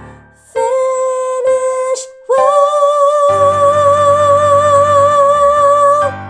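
Female soprano voice singing the closing phrase of a choral song over instrumental accompaniment: a few short notes, a brief breath about two seconds in, then a long final note held with vibrato for nearly four seconds before it stops.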